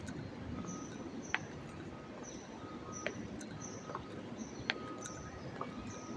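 Construction-site ambience: a steady low rumble, with short high beeps repeating about once a second at two different pitches and a few sharp clicks.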